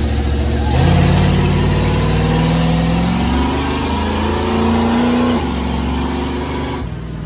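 Monster truck ride vehicle's engine running and accelerating, its pitch rising steadily for about four seconds and then dropping back as it eases off, heard from inside the open roll cage with wind rushing past.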